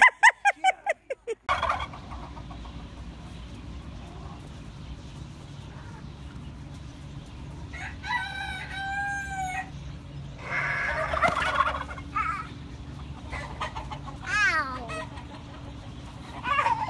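Rooster crowing once in the middle, one long call, with shorter fowl calls and clucking before and after it. The loudest sound is a brief run of quick pulses at the very start.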